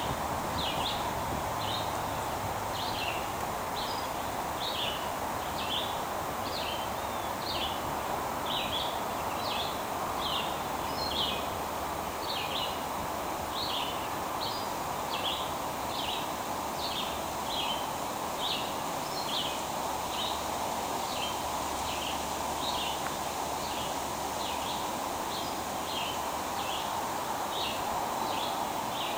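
Stream water running in a steady rush, with a bird repeating a short chirp about one and a half times a second.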